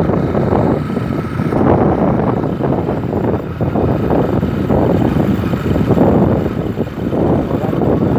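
Wind buffeting the microphone of a motorcycle in motion, a loud, even rushing with the engine running underneath.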